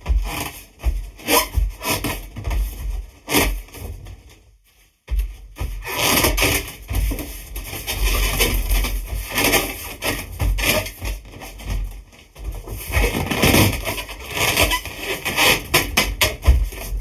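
Hands rubbing and squeezing an air-filled latex balloon made from sheet latex, giving a continual run of squeaks and rubbing noises, with a brief pause about five seconds in.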